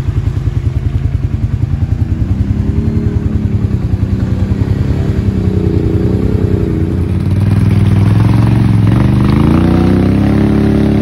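ATV engine running with a fast, even pulse, revving up a little after a couple of seconds and then climbing higher and louder through the last few seconds as the quad pushes through mud and water.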